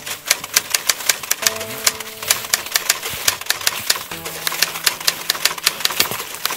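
Typewriter keystroke sound effect, a fast run of sharp key clicks, about six a second, over background music with held notes.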